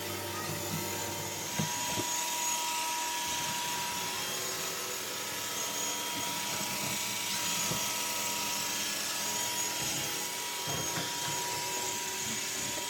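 iRobot Roomba 892 robot vacuum running: a steady motor and fan hiss, with a thin steady whine that comes in about a second in. A few light knocks come through now and then.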